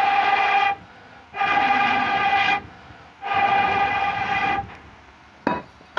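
A blowpipe blown into the fire of a wood-burning clay stove (chulha) to fan the embers, sounding three long horn-like blasts of a steady tone with short breaths between. A short knock follows near the end.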